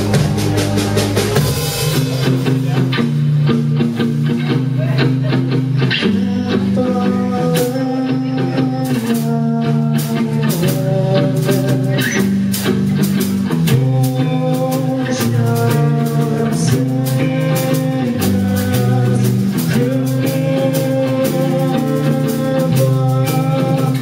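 Live rock band playing: electric guitars over a drum kit, a repeating low riff with steady drum hits.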